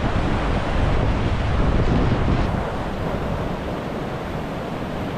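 Steady rushing roar of whitewater rapids, with wind buffeting the microphone that eases about halfway through.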